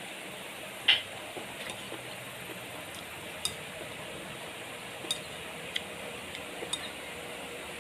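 Metal spoon clinking and scraping now and then against a ceramic bowl while eating, a few short light clicks spread out over a steady hiss.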